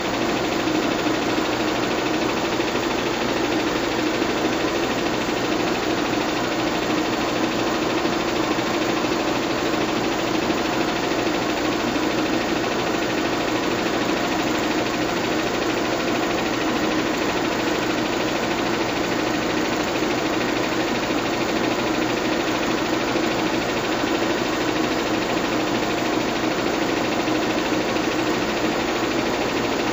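Bell & Howell 122 LR 8mm film projector running steadily, its motor and film mechanism giving an even mechanical drone with one strong low tone.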